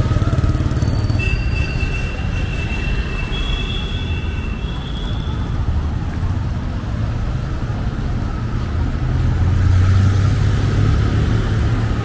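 Busy road traffic: a steady low rumble of passing vehicle engines that rises to its loudest about ten seconds in, with thin, high, steady tones in the first few seconds.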